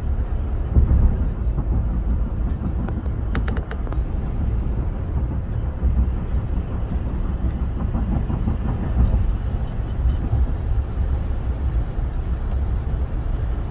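Steady low rumble of road and tyre noise with the engine underneath, heard from inside a moving vehicle's cabin at road speed. A few brief faint clicks come about three and a half seconds in.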